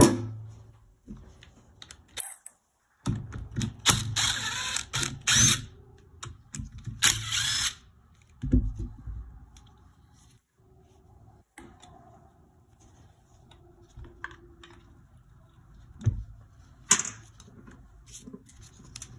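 Cordless power tool run in two short bursts a few seconds in, with scattered knocks and clatter of tools during engine teardown work.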